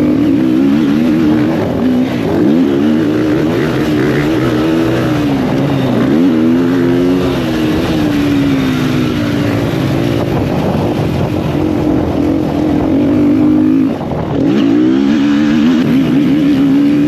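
Motocross bike engine under riding load, its pitch rising and falling as the throttle is worked and gears change. About fourteen seconds in the sound drops briefly as the throttle is shut off, then picks up again.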